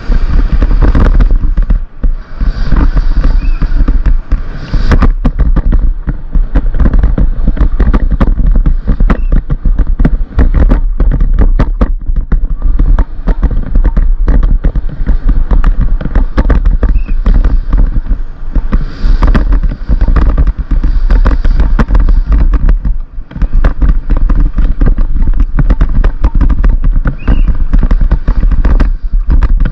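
Downhill mountain bike ridden fast over a rough, rooty dirt trail, heard through a helmet-mounted camera: a loud, constant clatter of knocks and rattles from the bike and tyres over a steady deep rumble.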